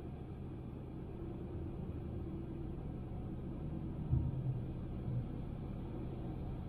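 Honda Civic on the move: steady low road and engine rumble, with a brief louder thump about four seconds in.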